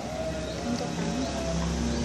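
Background music with held, gently gliding notes.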